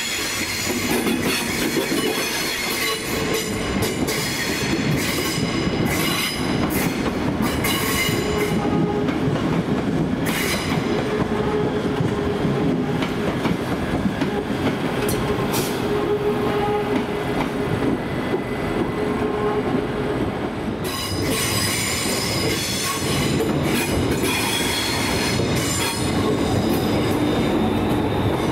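ScotRail Class 320 electric multiple units running slowly through the station tracks: steady wheel-on-rail rumble with high-pitched wheel squeal and clusters of clicks as the wheels cross rail joints and pointwork. A steady hum runs through the middle stretch.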